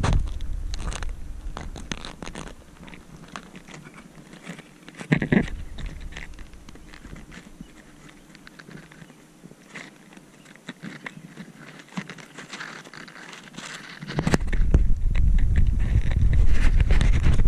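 Irregular rustling, crackling and scraping of grass blades brushing against a handheld camera, with a sharp knock about five seconds in. A loud low rumble of handling noise comes in near the end.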